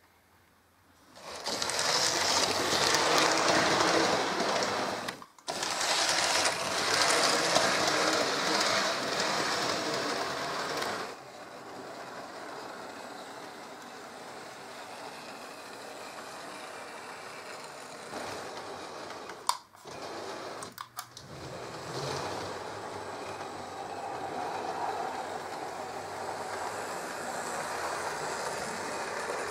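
H0-scale model trains running on a layout: a steady whirring of small electric motors and wheels on the track, starting about a second in and loudest for the first ten seconds, then quieter, with a few sharp clicks about two-thirds of the way through.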